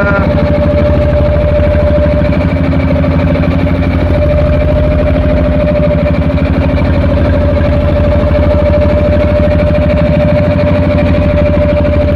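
A boat's engine running steadily at speed, loud and close: a constant tone over a fast low throb.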